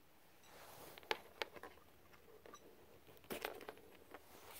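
A few faint, scattered clicks and scratches of fingers handling a Mobula7 micro quadcopter to pull its small battery plug, with a short cluster of clicks a little past three seconds in.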